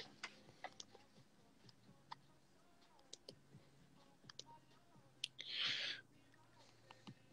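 Near silence: quiet room tone with faint, scattered small clicks and a short soft hiss about five and a half seconds in.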